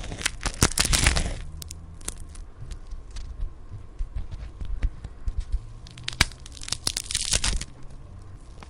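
Sound effect of a bone slowly being broken: a dense run of crackling, splintering snaps, then scattered single cracks, then a second crackling burst with a sharp crack near the end.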